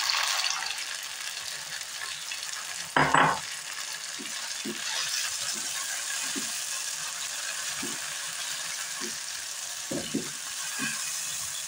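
Chopped tomatoes and onions sizzling in hot oil in a nonstick frying pan, the sizzle flaring as the tomatoes go in at the start. A plastic spatula stirs them, with a louder clatter about three seconds in and short knocks against the pan about once a second after that.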